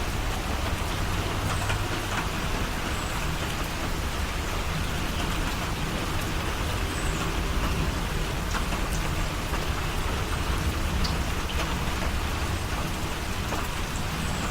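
Steady rain, an even hiss with scattered sharp drop ticks.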